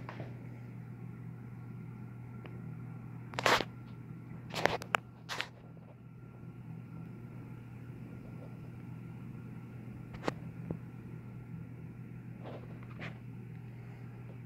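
Steady low hum of running aquarium equipment, with a few sharp clicks and knocks: a cluster of the loudest about three and a half to five and a half seconds in, and single ones around ten and thirteen seconds in.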